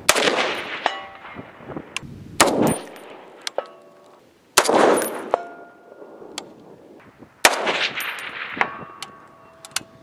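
Four shots from an M1A (M14-type) rifle in 7.62×51 NATO, each followed about a second later by the ringing ding of a distant steel target being hit.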